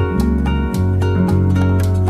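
Background music led by plucked guitar over a held bass line, notes changing about every half second.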